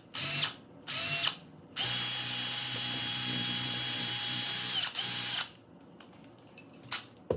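Handheld electric power tool scrubbing old solder off a brass valve's sweat fitting so it can be resoldered. Its motor whines steadily, in three short bursts, then one run of about three seconds and a final short burst, before stopping.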